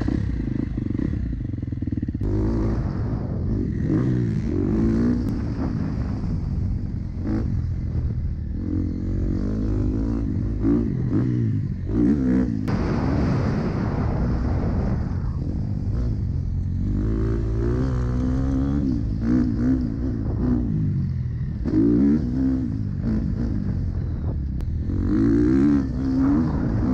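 KTM dirt bike engine revving hard as it is ridden around a motocross track. It pulls away from a standstill at the start, then the pitch rises and falls again and again with the throttle and gear changes.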